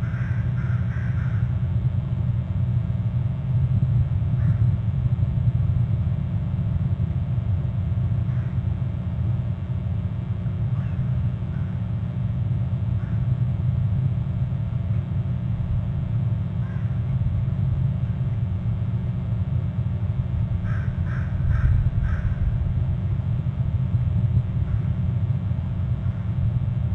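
Steady low rumble on the open-air nest-camera microphone, broken twice by a bird calling in a quick run of about four harsh notes: right at the start, and again about 21 seconds in.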